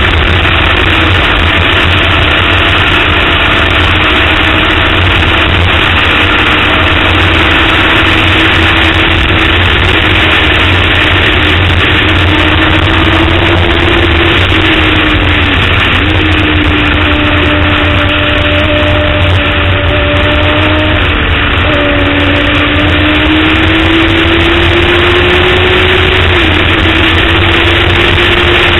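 Sportbike engine running hard at high revs, heard from the bike itself over heavy wind rush. Its pitch holds high, climbing and sagging slowly, with a couple of sudden brief dips.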